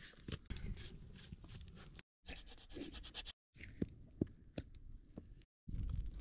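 Scraping and scratching with scattered sharp clicks over a low rumble, broken into short pieces by abrupt cuts to silence.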